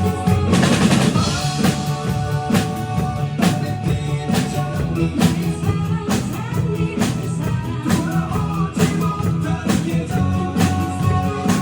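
A drum group playing along to a song with singing, the drums striking a steady beat a little under once a second.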